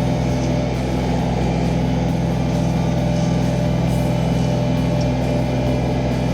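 Ditch Witch SK850 mini skid steer's engine running steadily at a constant speed.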